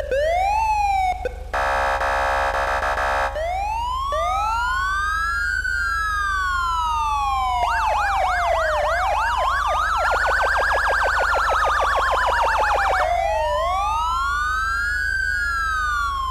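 Code 3 Z3 electronic police siren working through its tones: a short whoop, a steady buzzing tone about two seconds in, then a slow rising and falling wail. From about eight to thirteen seconds a fast yelp runs over the wail, and then the wail goes on alone. A steady low hum lies underneath.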